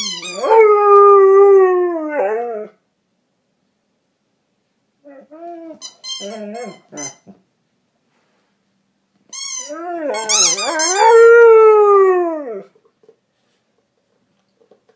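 Dog howling while chewing on a toy: a long howl that falls in pitch, a few short broken whines about halfway through, then a second long howl that rises and falls.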